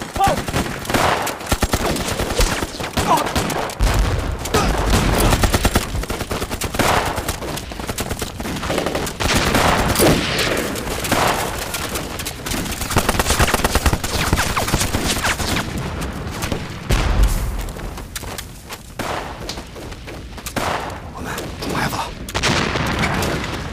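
Dense battle gunfire: continuous machine-gun bursts mixed with rifle shots. Two stretches of heavier, deeper bangs come about four and seventeen seconds in.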